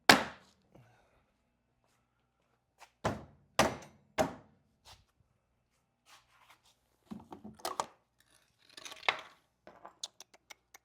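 Hammer blows on the wooden side bar of a shipping pallet, knocking it loose: one strike at the start and three hard strikes in quick succession a few seconds in, followed by lighter knocks and clatter of the loosened wood.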